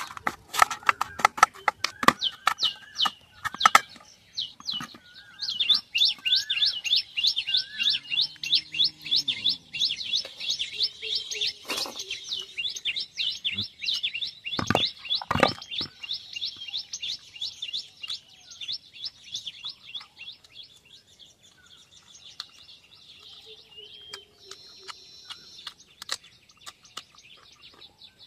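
A bird giving a long run of quick, evenly repeated high chirps that fades out after about twenty seconds. In the first few seconds there are clicks and squelches of food being mixed by hand in a metal bowl, and a couple of sharp knocks come midway.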